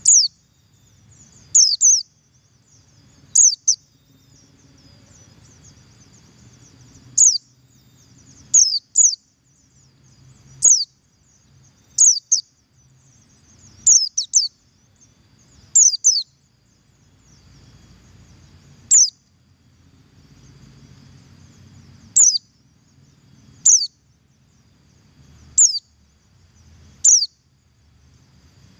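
Oriental white-eye (pleci buxtoni) giving its double call: short, sharp, high notes that drop in pitch, some single and some in quick pairs, repeated every one to three seconds.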